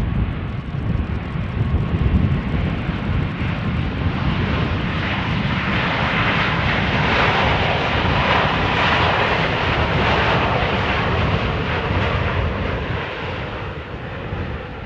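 Boeing 737 MAX 8 airliner with CFM LEAP-1B engines on its landing rollout, a low rumble under steady jet engine noise. The engine noise swells to its loudest midway, then fades toward the end as the plane slows down the runway.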